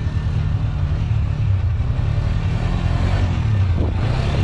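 An ATV (four-wheeler) engine running steadily with a low rumble, with some extra noise about three seconds in.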